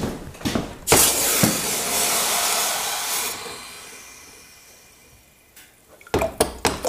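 Hot forged steel hook quenched in a tub of water: a sudden loud hiss about a second in that fades away over the next few seconds. A few sharp metal clinks near the end.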